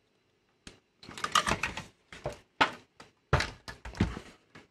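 Irregular knocks, clicks and rattles of a VCR tape mechanism, its plastic chassis and wiring loom being handled on a bench, starting about a second in.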